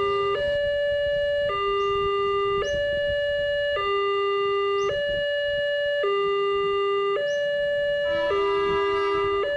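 Two-tone hi-lo siren sounding, switching evenly between a low and a high note about once a second, the 'nee-naw' pattern of an emergency vehicle.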